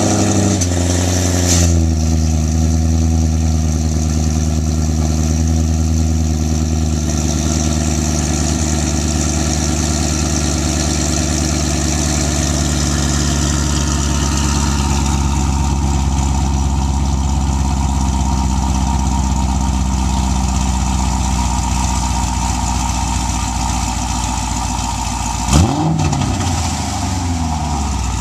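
Corvette C6's LS3 V8 with LG long-tube headers, X-pipe with hi-flow cats and B&B Fusion mufflers with the valves open, running at a cold-start fast idle. The idle settles within the first two seconds after the start-up flare, holds steady and eases slightly lower, and about 26 seconds in there is one quick throttle blip that rises and falls.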